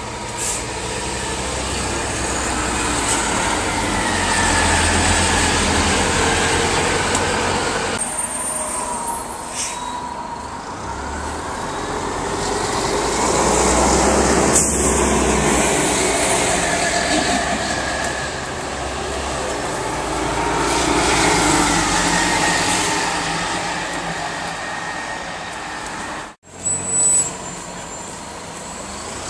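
Orion V CNG transit buses driving past, their engines running with a whine that rises and falls. Each pass swells and fades: loudest about 5, 14 and 21 seconds in. The sound drops out briefly near the end.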